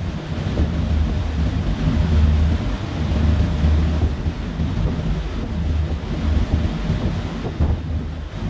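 Wind buffeting the microphone on a moving ferry, in uneven gusts of low rumble, over a steady rush of water.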